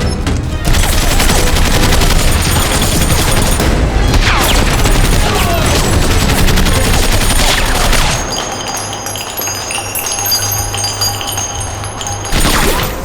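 Film soundtrack of a firefight: sustained rapid gunfire, many shots in quick succession, for about eight seconds. Then the shooting drops away to quieter sound with some high steady tones, and a short loud sweep near the end.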